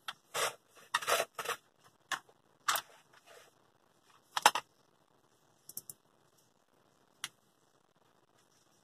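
Plastic parts of a disassembled steam iron and a screwdriver clattering on a workbench as they are handled: a run of short knocks and rattles over the first four and a half seconds, the loudest about four and a half seconds in, then a few light clicks.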